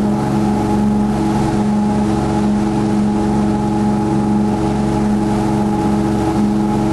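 Engine running at a steady speed: a constant hum with an even rushing noise underneath.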